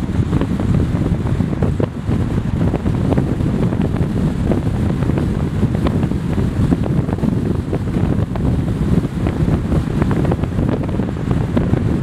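Steady wind buffeting on the microphone over the low rumble of a car travelling at road speed, with no engine tone standing out.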